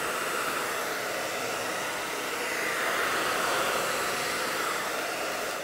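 Handheld hair dryer blowing steadily, drying a freshly applied second coat on a craft board.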